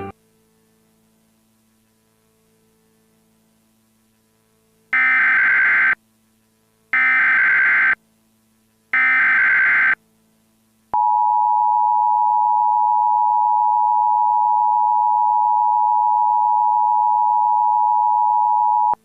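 Emergency Alert System tones: after about five seconds of near silence with a faint hum, three one-second bursts of SAME header data tones sound about two seconds apart, then the steady two-tone EAS attention signal holds for about eight seconds. It announces an emergency alert, here a tornado warning.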